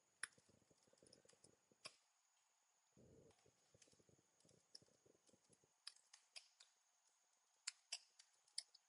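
Near silence with scattered faint computer keyboard key clicks, irregular and spaced apart, as code is typed.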